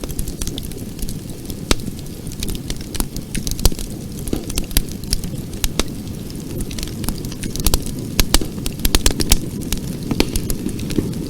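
Campfire burning, with a steady low rush of flames and irregular sharp crackles and pops of burning wood, the pops coming thicker in the last few seconds.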